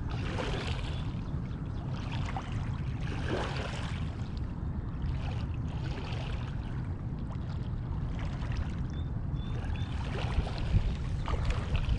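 Fast river current rushing steadily, with a low rumble underneath.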